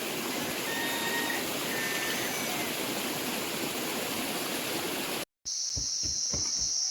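Steady rush of stream water with a few faint, short high chirps over it. Near the end it cuts abruptly to a steady high insect drone with a few low thumps.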